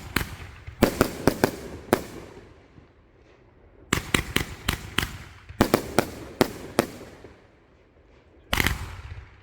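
A 23-shot, 500-gram consumer firework cake firing. It goes off in three quick volleys of several sharp bangs each, with crackle between them, and ends in a longer loud blast near the end.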